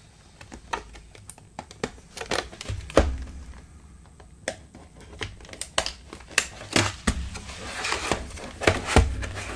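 Stiff clear plastic packaging around a rolled canvas being handled and cut open: crinkling and crackling with many sharp clicks, and two louder knocks, about three seconds in and near the end.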